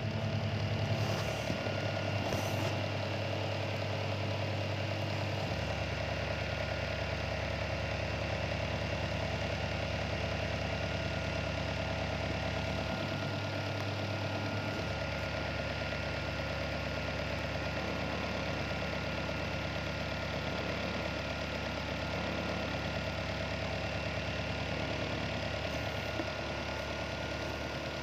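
Small electric desk fan running steadily: a motor hum with a few fixed tones over an even rush of air from the blades. The deepest part of the hum changes a little about five seconds in and again around the middle.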